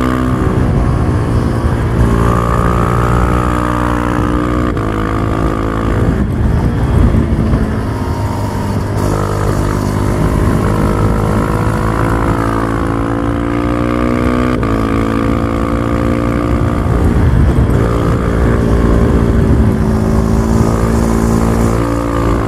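Husqvarna Vitpilen 701's single-cylinder engine running on the move, heard from the bike, its pitch changing in steps several times.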